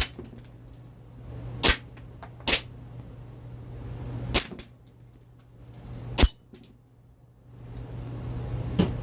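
Six shots from a CO2-powered blowback airsoft pistol, the ASG Steyr L9-A2, firing 0.25 g BBs. Each is a sharp crack, and they are spaced unevenly a second or two apart, with the last one fainter.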